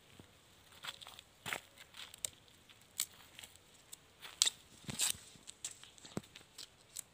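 Dry outer sheaths being torn and peeled by hand off a freshly cut bamboo shoot: scattered sharp snaps and crackles, a few seconds apart.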